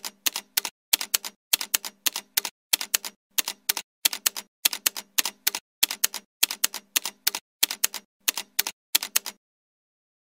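Typewriter key-clack sound effect: sharp clicks in quick clusters of three or four, repeating roughly every half second, stopping about a second before the end.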